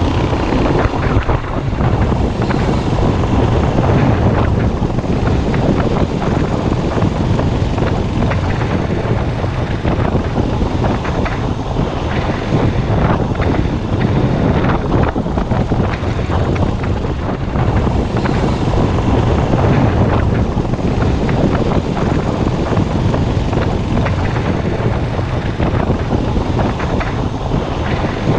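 Motorcycle riding at speed: wind rushing over the camera's microphone, with the bike's engine running steadily beneath it.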